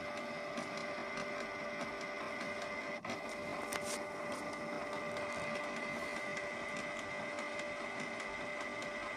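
Canon PIXMA G3411 inkjet printer running its ink-priming cycle before printing a copy: a steady motor whine with faint ticking and a sharper click about four seconds in. The slow pumping of ink is a normal stage of the cycle.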